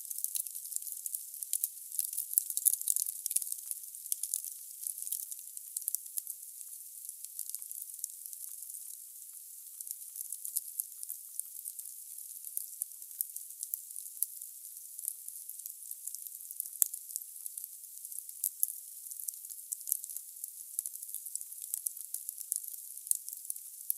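Firewood burning in a fireplace: a steady, dense crackle and hiss of the fire, with sharper pops every now and then.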